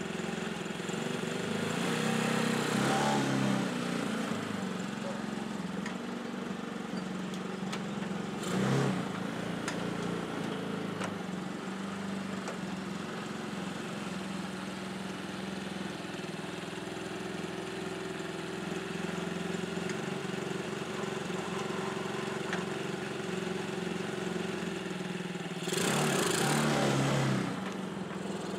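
Motorcycle engine swapped into a small tractor, running steadily as the tractor drives off. The revs rise briefly about two seconds in, again near nine seconds, and once more near the end as the throttle is opened. The engine has no governor, so its speed follows the throttle alone.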